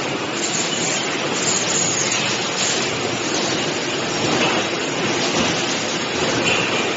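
Steady, fairly loud machinery noise from a running automatic plywood veneer composer (jointing) machine and its conveyors, an even mechanical din without distinct knocks.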